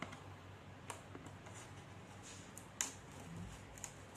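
Faint clicks and rustles of a cardboard box being handled while a seal is pulled off it, with sharper ticks about a second in and near three seconds.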